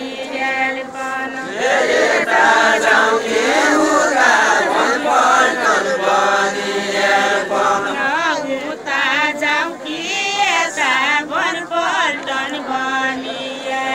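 Deuda folk song sung by a group of voices together, unaccompanied, in a continuous wavering chant-like melody.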